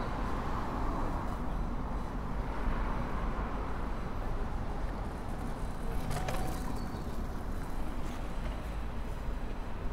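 City street background: a steady rumble of traffic, with faint steady high tones in the background and a couple of short clicks about six seconds in.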